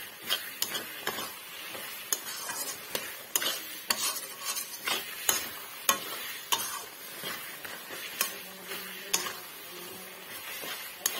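A metal spoon stirring sticky borai (Indian jujube) pickle in a metal kadai, scraping and clacking irregularly against the pan about once or twice a second. The syrup sizzles steadily underneath.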